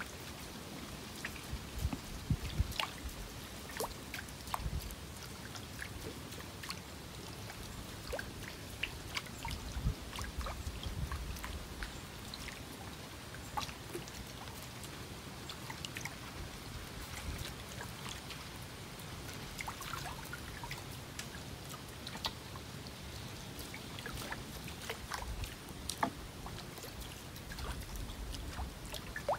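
Small, irregular water splashes and drips as a live baitfish on a short line, at the tip of a long bamboo pole, is skipped and dragged across the river surface. A few soft low rumbles come and go.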